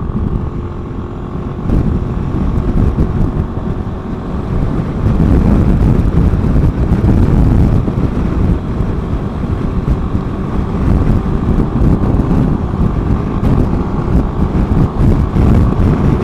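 Wind rushing over the microphone, mixed with the running engine of a 2015 Suzuki Burgman 400 scooter as it accelerates up to highway speed. The noise grows louder over the first five seconds, then holds steady.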